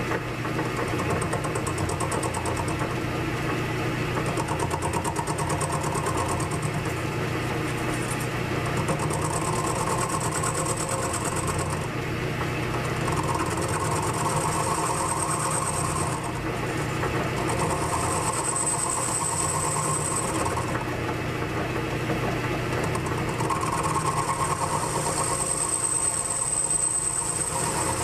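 1942 South Bend lathe running under power, with a steady low hum from its motor and drive. A high, thin whine comes and goes in stretches of a few seconds as the tool cuts the welded end of the spinning workpiece.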